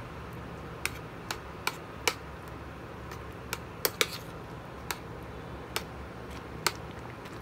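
Metal spoon knocking and clinking against a stainless steel frying pan while stirring a thick bean stew. About ten irregular clicks, the loudest pair about four seconds in, over a steady low hum.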